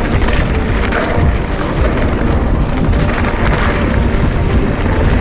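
Wind buffeting the camera microphone while a mountain bike rolls fast down a dirt trail. The tyres rumble over the ground and the bike rattles with frequent small clicks and clatters.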